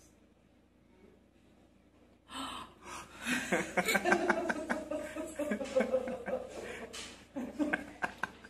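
Near silence, then about two seconds in, several people break into laughter, gasps and exclamations.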